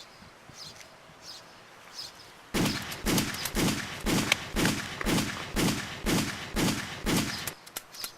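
A gun fired about ten times in a steady run, roughly two shots a second, each shot with a falling tail, then stopping after about five seconds: the shooter has run out of bullets. Faint bird chirps come before the shooting.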